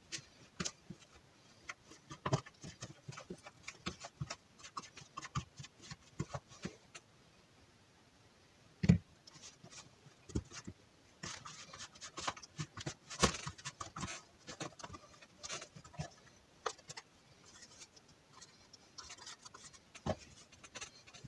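Hands kneading a damp pellet paste in a small plastic tub: irregular scraping and crackling of fingers against the plastic, broken by a few knocks, the loudest about nine seconds in.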